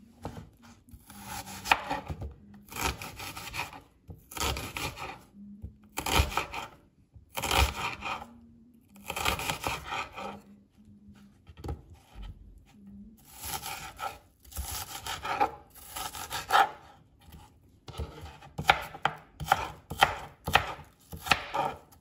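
Kitchen knife cutting a peeled onion on a plastic cutting board: slow slicing strokes about every second and a half, then quicker chopping near the end as the onion is diced.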